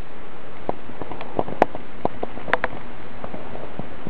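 Camera handling noise: scattered light clicks and taps, a couple sharper ones, over a steady recording hiss.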